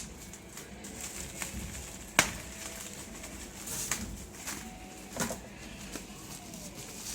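Scattered sharp clicks and knocks of packaging and parts being handled, the loudest about two seconds in, with a few faint short squeaks between them.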